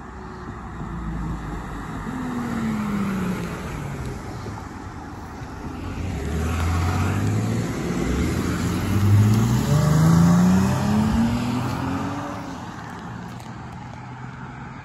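Emergency vehicles driving past one after another. One passes early with its engine note dropping, then a Dodge Charger police car accelerates by with its engine note rising, loudest about nine to eleven seconds in.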